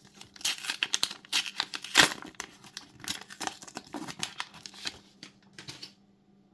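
A trading-card booster pack's foil wrapper being torn open and crinkled by hand, a run of rustling rips with the sharpest about two seconds in, dying away near the end.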